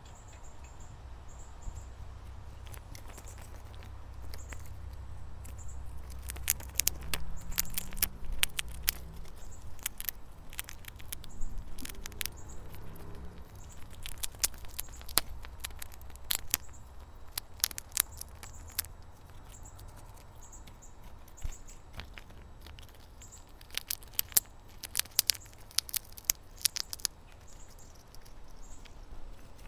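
Chipmunk chewing sunflower seed kernels from a hand, close up: quick clusters of small crisp crunching clicks with short pauses between them, over a low steady rumble.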